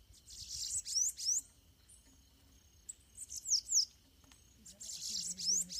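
Two bananaquits, a caged bird and a wild one at the cage, singing against each other in a territorial dispute: three quick bursts of high, buzzy, sweeping song notes with short pauses between them.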